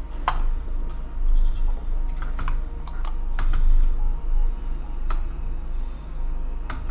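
Scattered clicks of a computer keyboard and mouse being operated, about eight sharp clicks spread irregularly, over a steady low hum.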